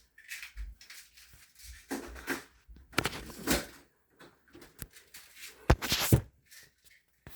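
Irregular knocks, clicks and rustling of objects being handled, with two sharp, loud clicks close together near the end.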